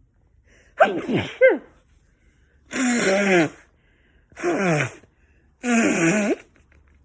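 A person sneezing four times in a row, each sneeze a voiced burst falling in pitch, the first in two parts.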